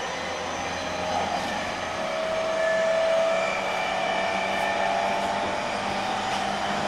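Inside a moving E231-series electric commuter train: the traction motors and inverter whine in several faint tones that edge slightly upward in pitch, over the steady rolling noise of wheels on rail.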